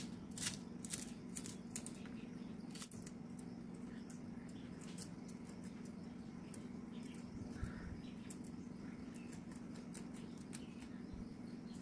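Kitchen knife slicing through a banana flower on a wooden chopping board: crisp, irregular cutting clicks, quick and close together for the first few seconds, then sparser. A steady low hum runs underneath.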